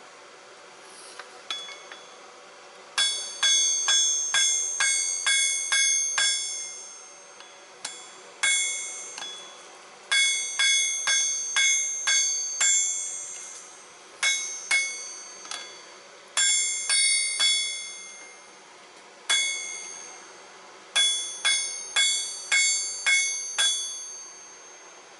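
Hand hammer striking a red-hot file blank on an anvil while forging a knife blade. Each blow rings out bell-like and fades. The blows come in quick runs of several, about two to three a second, with short pauses between runs.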